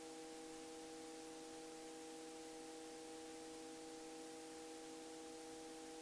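Faint steady hiss with several steady humming tones underneath, unchanging throughout: background noise of a helicopter's cockpit audio feed between spoken calls.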